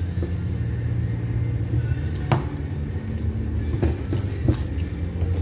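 Steady low rumble of background room noise, with a few light sharp clicks, the clearest about two seconds in.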